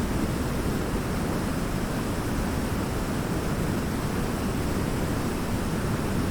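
Waterfall: a steady, even rush of falling water, heaviest in the low range.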